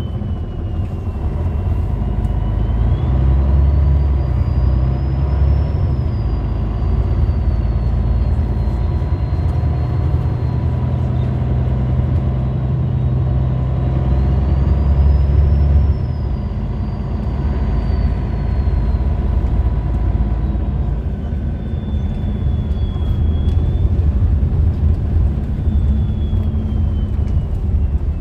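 MAN A20 city bus under way, heard from inside: its 310 hp MAN D2866LUH24 inline-six diesel runs with the ZF 5HP592C automatic gearbox, pulling harder twice, each time with a thin high whine that rises and then falls back. The loudness drops suddenly about sixteen seconds in, and a falling whine follows near the end.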